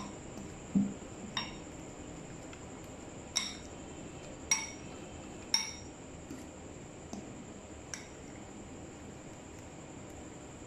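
A metal fork stirring a dry flour-and-cornflour mix in a cut-glass bowl, clinking against the glass with bright ringing ticks: about six clear clinks in the first six seconds, then a few fainter taps. A dull knock sounds about a second in.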